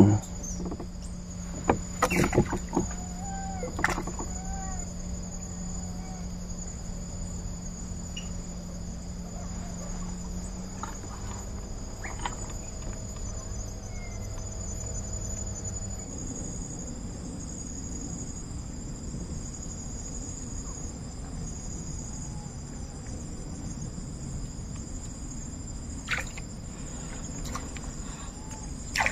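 Insects chirping in a steady high-pitched drone, the higher tone turning into a pulsing on-off chirp about halfway. A low hum underneath stops about halfway, and a few short knocks come early and near the end.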